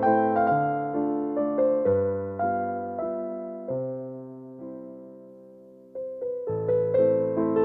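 Background music: a slow piano melody of held, decaying notes, which dies away about five seconds in and picks up again a second later.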